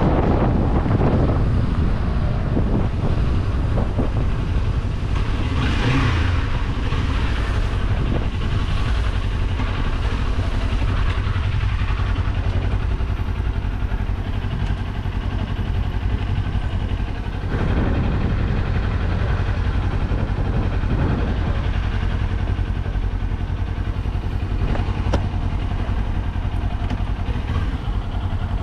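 Kawasaki Z400 motorcycle's 399 cc parallel-twin engine running on the move, heard from on board with wind rush. The engine note swells and dips a few times as the throttle opens and closes.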